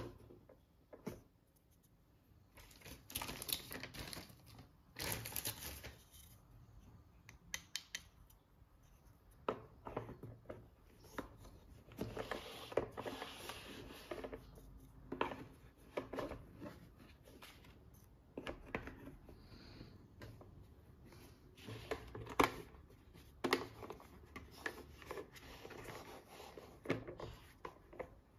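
Hands handling toy packaging and small plastic pieces: scattered clicks and taps mixed with short crinkling, rustling bursts.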